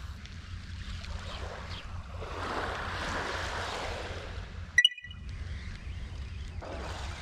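Wind buffeting the microphone over a low wash of sea, with a swell of noise in the middle and one brief sharp click with a short ringing tone about five seconds in.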